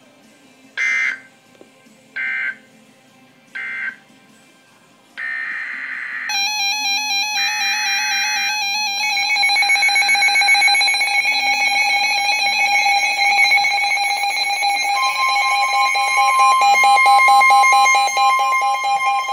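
Emergency Alert System tones: three short digital data buzzes, the end-of-message code of one alert. A few seconds later another data burst comes in, then a loud warbling multi-tone alarm. The alarm grows fuller, with a new tone joining about two-thirds of the way through, as the next warning begins.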